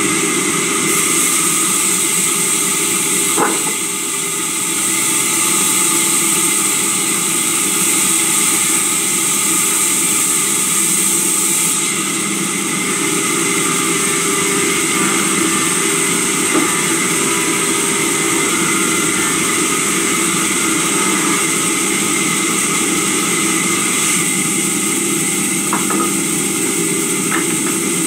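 Sawmill saw and its drive motor running steadily with a loud, constant machine drone and hiss, while timber is worked through it. A few sharp knocks of wood against wood or metal come through about 3 s in, midway, and near the end.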